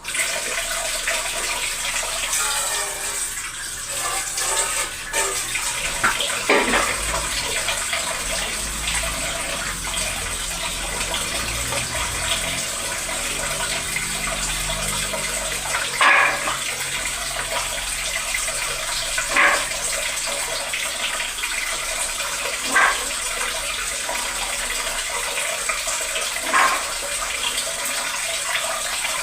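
Kitchen tap running steadily, with a few short knocks a few seconds apart, about six seconds in and then several more through the rest.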